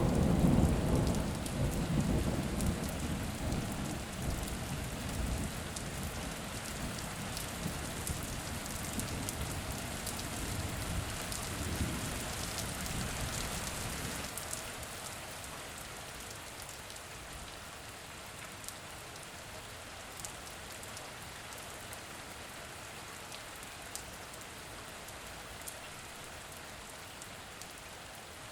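Steady rain hissing and pattering, with a long rolling rumble of thunder that is loudest at the start and dies away after about fourteen seconds, leaving only the rain and scattered drop ticks.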